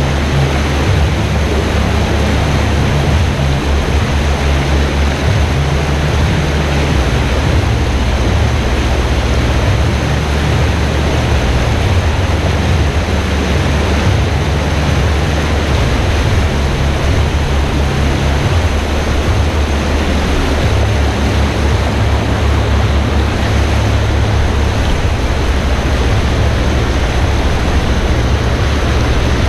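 River rapids rushing over rocks: a loud, steady roar of whitewater with a heavy low rumble underneath.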